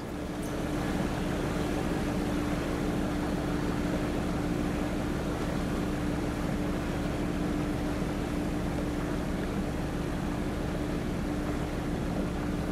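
Sailboat's engine running steadily under way, a constant drone with a steady hum.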